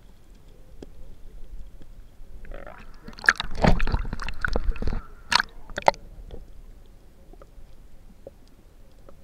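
Water sloshing and splashing against a waterproof action-camera housing held just under the sea surface: a muffled hiss with small ticks, then about three seconds in a loud stretch of sloshing as the camera breaks the surface, with two sharp splashes as it goes back under.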